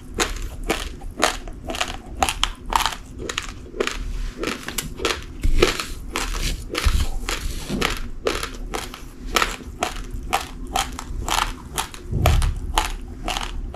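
Uncooked rice grains being chewed: a steady run of crisp crunches, several a second.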